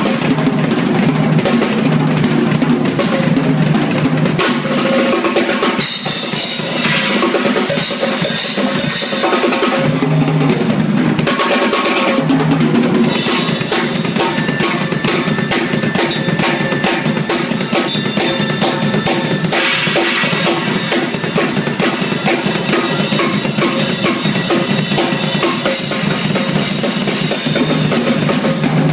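Drum kit played continuously in a steady groove of kick and snare, with cymbal wash coming in and dropping out several times.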